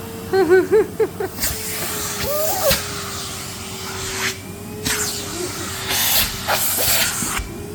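Henry vacuum cleaner's motor running with a steady whine, broken by several bursts of hissing air, with short squeaky, wavering cries near the start.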